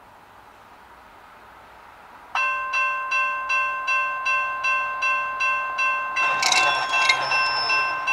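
Railroad grade-crossing warning bell starting suddenly about two seconds in and dinging steadily, about two and a half strokes a second, signalling an approaching freight train. A brief rush of noise joins it about six seconds in.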